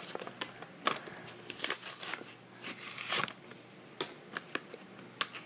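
Hot Wheels card-and-blister package being torn open by hand: cardboard and plastic crinkling and tearing in irregular crackles and sharp clicks.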